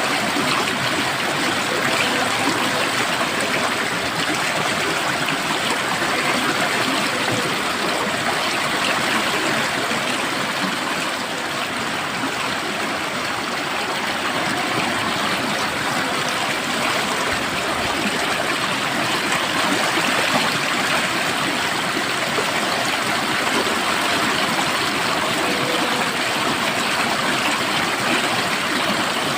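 Flowing water: a stream running steadily, a continuous even rushing and trickling.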